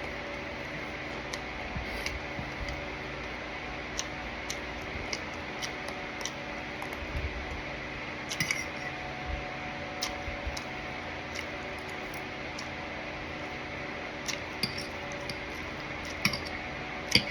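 Scattered light clicks and clinks of tableware, as if someone is eating from a plate, over a steady low room hum.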